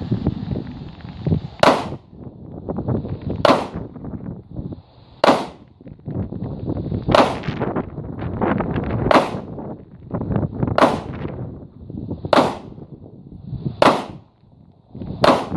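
Glock 19 Gen 3 9mm pistol fired in slow, deliberate single shots: nine shots, about one every one and a half to two seconds.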